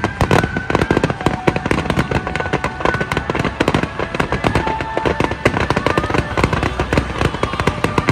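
Rapid fireworks barrage: a dense, unbroken run of bangs and crackles, many a second, with a few short whistling tones over it.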